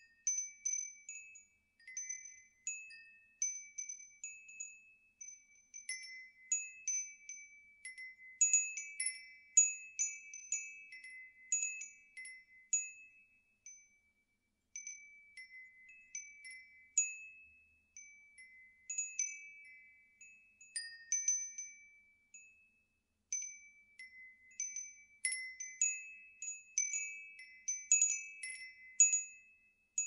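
Copper wind chimes tinkling, high ringing notes struck at irregular moments and overlapping as they fade, with two brief lulls, about midway and two-thirds of the way through.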